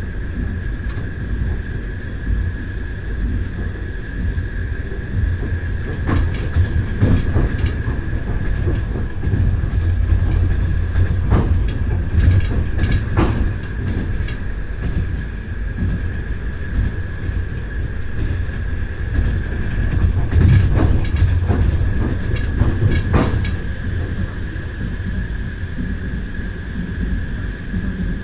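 Train wheels clacking over rail joints during a ride, over a steady low rumble and a faint steady high whine. The clacks come in bunches: several in quick succession, several seconds apart.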